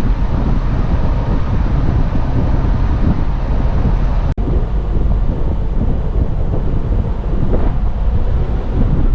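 Off-road vehicle driving on a dirt track: a steady low rumble, heavily buffeted by wind on the microphone. The sound cuts out for an instant a little over four seconds in.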